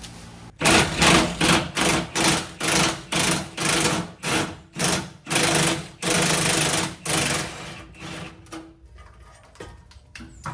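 A power tool run in about a dozen short bursts in quick succession, each a loud whirring with a steady hum, stopping after about seven seconds.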